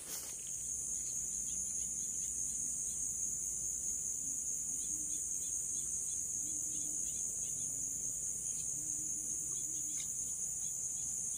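Steady high-pitched chorus of insects buzzing without a break.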